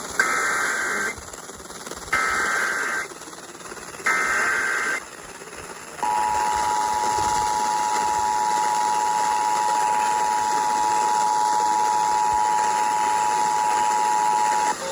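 Emergency Alert System alert tones: three one-second bursts of SAME header data, a second apart, then the steady two-tone EAS attention signal, held for about nine seconds. Together they mark the start of a broadcast emergency alert, here a severe thunderstorm warning.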